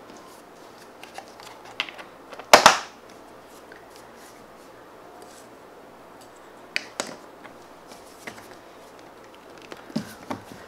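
Small plastic slime tubs and lids being handled and poked: scattered light clicks and taps, the loudest a sharp snap about two and a half seconds in.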